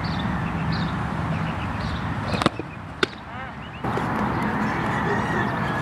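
Steady outdoor background noise with birds chirping. About two and a half seconds in come two sharp pops half a second apart, the first the loudest thing here, and the background drops away for about a second after it.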